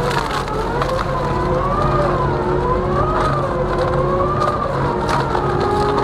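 Twin-shaft wood shredder running under load, its toothed rotors crushing blocks of wood. A machine whine wavers up and down about once a second over a low steady hum, with scattered sharp cracks of wood splitting.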